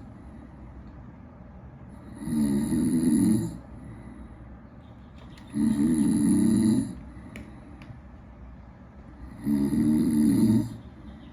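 A person snoring: three snores about three and a half seconds apart, each lasting just over a second, with quiet gaps between them.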